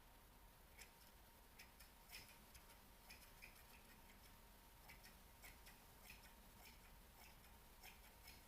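Near silence broken by faint, irregular soft clicks close to the microphone, a few a second, over a faint steady electrical tone.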